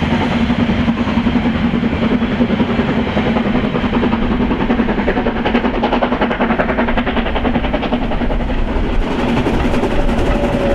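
Harz metre-gauge steam train running on the track, wheels clattering over the rails in a steady, loud din. Near the end a single steady high tone comes in and holds.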